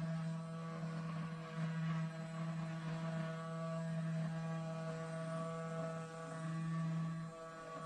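Small CNC router's spindle motor running with a steady hum, dipping briefly about a second and a half in and again near the end.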